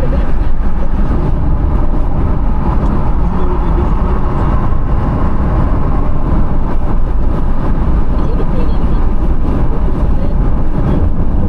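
Steady road and engine noise inside a moving car's cabin: an even low rumble that holds at one level throughout.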